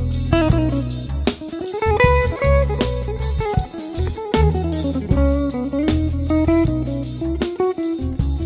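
Instrumental background music: a plucked guitar playing a melody over bass and drums with a steady beat.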